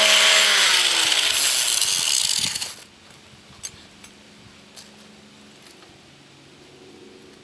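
Grinder grinding off bolt ends: its motor whine falls as it is switched off and spins down, and the grinding noise cuts off sharply a little under three seconds in. A few light clicks follow.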